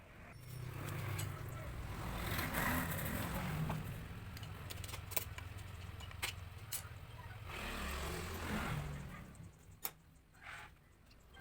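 A motor vehicle engine running, its sound swelling and easing twice, with a few sharp clicks in between.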